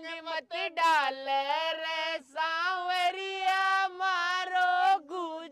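High-pitched singing on a music track: one voice sings phrases of long held notes that bend in pitch, with brief breaks between phrases.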